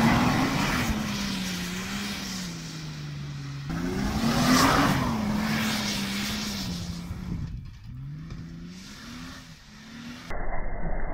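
Holden Commodore engine revving hard, its pitch rising and falling over and over, while the car slides and spins its wheels on dirt and grass, with a rush of flung dirt swelling twice. The sound breaks off and changes abruptly a few times.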